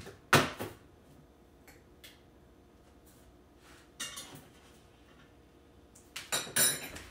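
Scattered kitchen knocks and clunks in a small room: one sharp knock about half a second in, softer clunks around four seconds and again near the end, with quiet room tone between.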